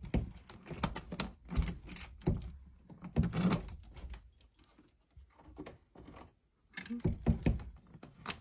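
Jewelry armoire's mirror door being handled, pushed shut against its magnetic catch and locked, giving a series of knocks, clicks and thumps, busiest about three seconds in and again near the end.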